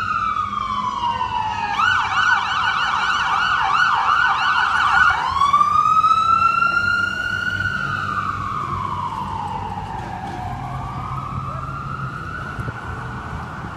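Emergency vehicle siren: a slow rising-and-falling wail that switches to a rapid yelp for about three seconds, then back to the slow wail, growing fainter as it moves away.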